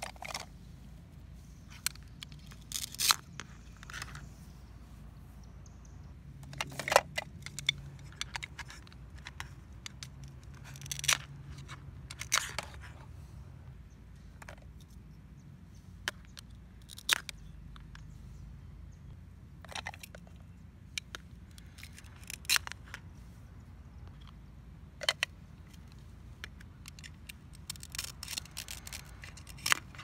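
Velcro on plastic toy fruits and vegetables ripping apart as they are cut with a toy knife: a scatter of short tearing rips at irregular intervals, with light handling of the plastic pieces in between.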